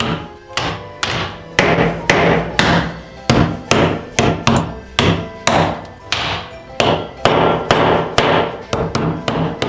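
Rapid repeated blows, about three a second, of a wooden-handled tool cracking the hard shells of steamed red rock crab claws, each strike a sharp knock with a short crunch.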